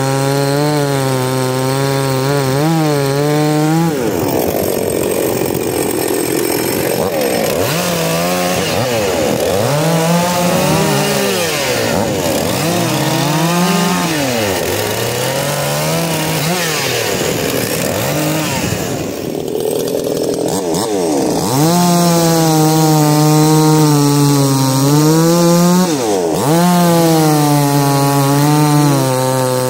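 Two two-stroke chainsaws, a Husqvarna 346XP and a Chinese-made saw, cutting wood, their engine notes dipping and climbing again and again as the chains bite into the logs. At the start and again from about two-thirds of the way through the engine note is steadier and higher.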